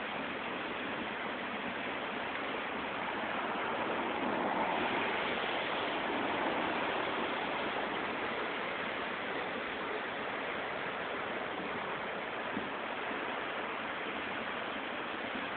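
Flooded creek running high and fast, a steady rush of churning white water, swelling a little for a few seconds near the middle.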